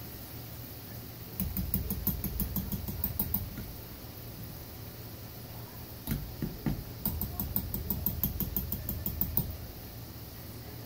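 Food frying in a pot of hot oil, a steady faint hiss underneath. Twice, a metal fork and then a slotted spatula clatter and scrape against the pot in rapid clicks as the food is stirred and turned, the first run starting about a second and a half in, the second about six seconds in.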